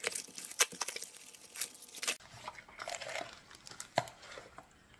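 Plastic packaging crinkling as parts are unwrapped from a small zip-lock bag, with many quick crackles in the first two seconds and a sharp click about four seconds in.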